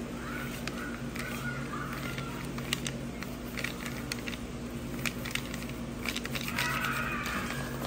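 Light taps and rustles of a paper sheet under fingers on a table, scattered clicks over a steady low hum.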